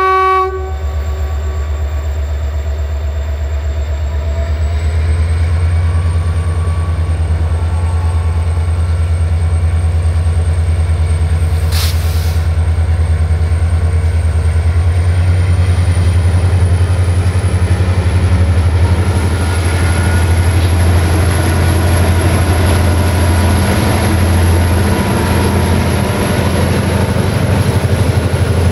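Diesel locomotive hauling a passenger train, its engine running in a steady low drone as it approaches and draws level. The rolling noise of the coaches' wheels on the rail builds in the second half, with a single sharp click about twelve seconds in.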